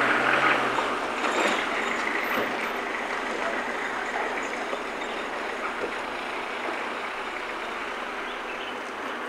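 Steady outdoor background hiss, fading slowly, with no clear single source.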